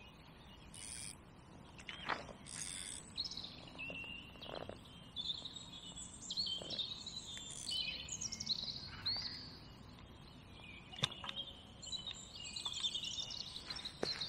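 Songbirds singing, many short chirps and warbling phrases overlapping, with a few sharp clicks; the loudest click comes about eleven seconds in.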